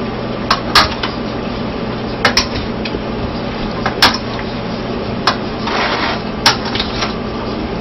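Forks tossing a dressed salad in a bowl: several sharp clinks of metal on the bowl at irregular intervals, with a short scrape about six seconds in, over a steady low hum.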